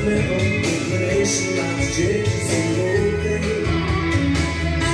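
Recorded music with guitar, played from a vinyl record on a turntable through a hi-fi stereo system and heard from its floor-standing loudspeakers in the room.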